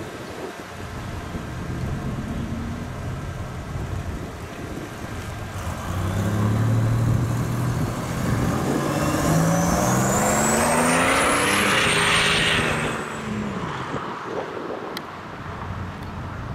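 Black 1980s Buick Grand National pulling away and accelerating, its engine note rising and getting louder about halfway through. A high whistle climbs along with the engine, then levels off and fades as the car drives away.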